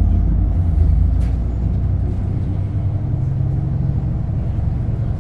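Shuttle bus engine and running gear heard from inside the cabin: a steady low rumble as the bus moves, settling into a steadier hum about three seconds in.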